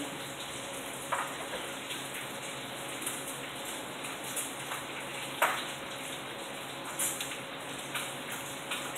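Heavy rain pouring steadily, a constant hiss with scattered sharp taps of drops, the loudest about five and a half seconds in.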